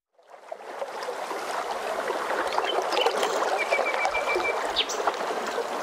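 Water rushing and splashing along the hull of a moving boat as its wake churns, fading in at the start and then running steadily. About midway comes a brief run of high pips.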